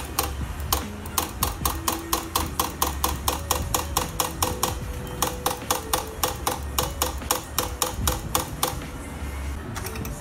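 Background music with a fast, even clicking beat of about five strikes a second over held bass notes.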